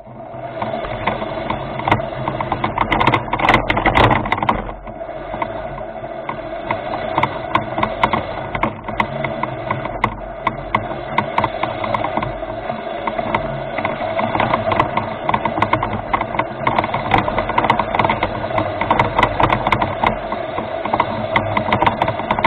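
Remote-controlled rover's electric drive motors and gearboxes running with a steady whine, with a constant light rattling and clicking from the moving parts. It starts suddenly and swells briefly a few seconds in.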